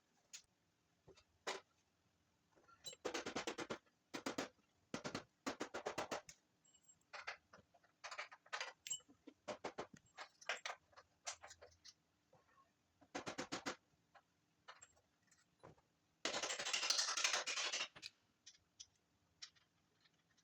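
Hand tools at work on a truck's suspension: repeated short runs of rapid clicking, each about a second long, and a louder rushing burst lasting under two seconds near the end.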